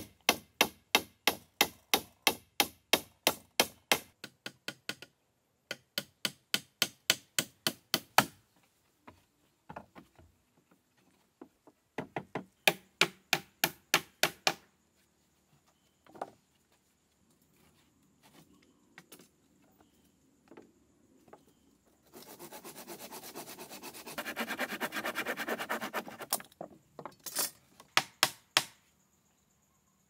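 A hand tool striking wood in quick runs of sharp blows, about four a second, with pauses and scattered single knocks between the runs. Later come a few seconds of dense, rapid scraping, then a few more strikes.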